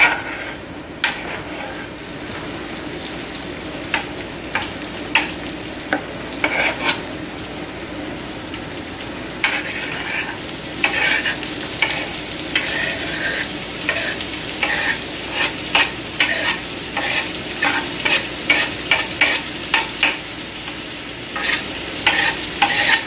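Onions, bell peppers and mushrooms sizzling as they are stir-fried in a hot pan, with a utensil scraping and clacking against the pan as the vegetables are tossed. The stirring strokes come more often from about ten seconds in.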